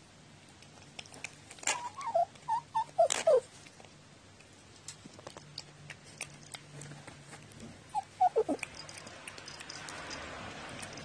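Domestic cat making short, warbling mews and murmurs while eating dry food from a bowl: a quick run of calls about two seconds in, ending in a louder falling one, and three more short falling calls about eight seconds in. Light clicks of kibble sound in between.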